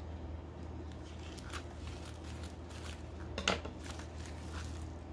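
Small items being unpacked by hand: light rustling and clicking of packaging, with one sharper click about three and a half seconds in, over a low steady hum.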